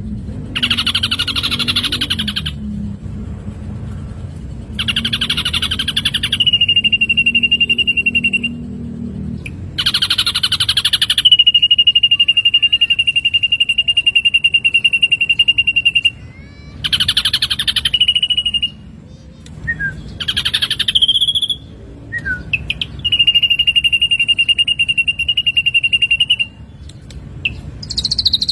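Ashy drongo calling: repeated harsh, rasping bursts, several of them followed by a long, steady whistle held for several seconds.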